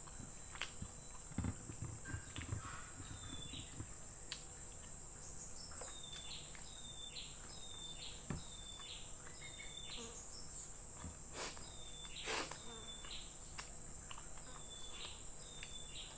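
Close-up mouth sounds of eating fried chicken liver: chewing with lip smacks and wet clicks, one louder smack about twelve seconds in. Behind them a steady high insect drone, and from about three seconds in a short falling chirp repeated about twice a second.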